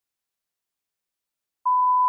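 Dead silence, then about a second and a half in, a single steady high beep starts: the test tone that goes with television colour bars.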